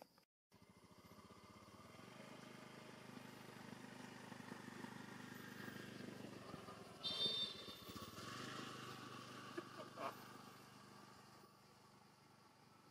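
A vehicle engine running steadily, swelling in loudness and then easing off, with a short loud high-pitched squeak about seven seconds in.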